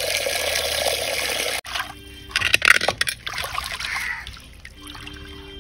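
Water running steadily over sardines being washed, stopping abruptly about a second and a half in; then scattered splashes and sloshing as the fish are scrubbed with rock salt and rinsed by hand.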